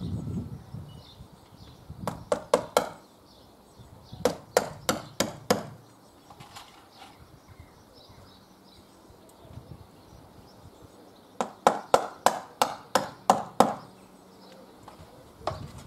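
A hammer striking nails in three runs of quick, sharp blows: four or five around two seconds in, about five more around four to five seconds in, and a longer run of about nine near the end.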